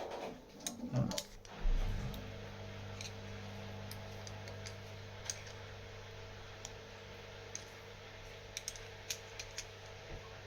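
Scattered light clicks and taps of small metal lock parts and tools as a LaGard 2200 lock is taken apart, after a louder handling rustle in the first two seconds. A steady low hum runs underneath from about two seconds in.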